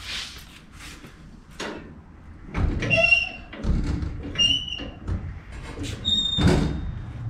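Squeaks and creaks as the rear wheel is jacked up, pushing the suspension into compression. There are three squeals, about three, four and a half and six seconds in, each over a low knocking, and the last is a thin held tone.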